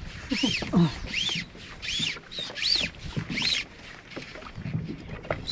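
Fly line being stripped in hand over hand through the rod guides while a hooked small mackerel is brought in. Each pull makes a squeaky zip that rises and falls in pitch, about one every 0.7 s, stopping a little after halfway.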